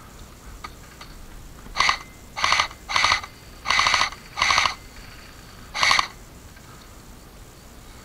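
JG G3 airsoft electric gun firing six short full-auto bursts. Each burst is a fraction of a second of rapid chattering shots, the fourth slightly longer, and the last comes after a longer pause.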